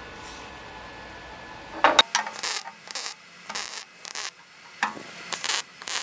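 MIG welder arc crackling in short triggered bursts on thin 18-gauge sheet metal, pulsed on and off to bridge a gap while keeping the heat low. A steady low hiss runs for about two seconds, then about eight brief crackling bursts follow.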